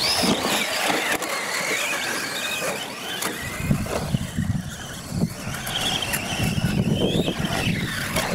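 Radio-controlled UTV trucks racing on dirt, their motors whining up and down in pitch with the throttle. Now and then a truck thuds as it lands off a jump.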